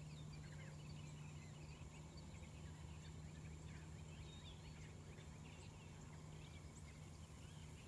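Faint chorus of many birds calling in the distance, short scattered chirps and whistles, over a low steady hum.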